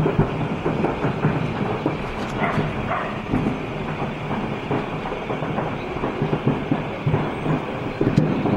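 Continuous low rumbling and crackling in the aftermath of a large explosion at an ammunition depot, with many small cracks and pops.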